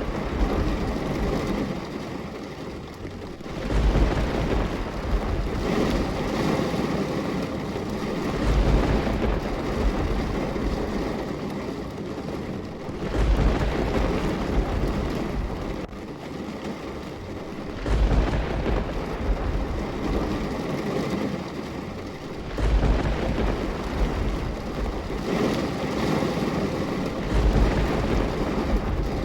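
Rain falling steadily, with a deep rumble that swells up about every four to five seconds.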